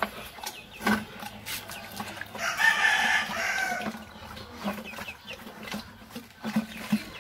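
A rooster crows once, about two and a half seconds in, for about a second and a half. Under it, a pig eats from a bucket with a steady run of short, low chewing and smacking sounds.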